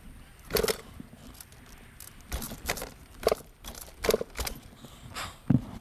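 Small dirt bike rolling along pavement with its engine not running: irregular knocks, rattles and scuffs from the bike.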